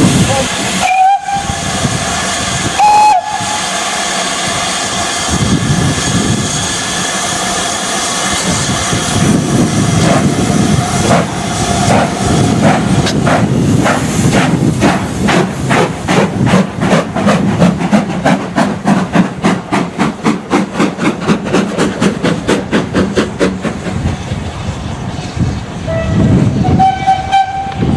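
Two short steam-locomotive whistle blasts, then a long steady hiss of steam from double-headed 2-6-0 moguls, Southern U class 31806 and GWR 4300 class 5322. From about halfway the locomotives' exhaust beats start up and settle into a regular, strong rhythm as the train pulls away, with more whistles near the end.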